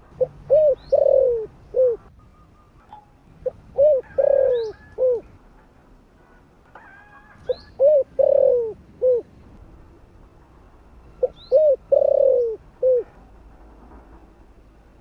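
Spotted dove cooing its song: four phrases a few seconds apart, each a couple of short coos, a longer falling coo, then a short closing coo. Faint high chirps of other small birds come in between.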